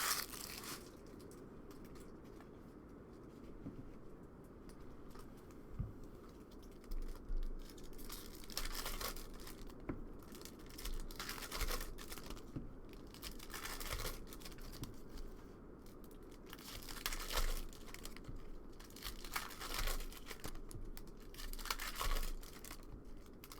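Trading card packs being handled and torn open, wrappers crinkling and tearing in short irregular bursts every second or two.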